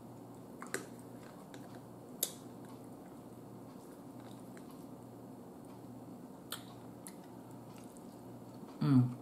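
A person eating garlic-butter pasta from a fork, with faint chewing and a few sharp mouth or fork clicks, and a short hum just before the end.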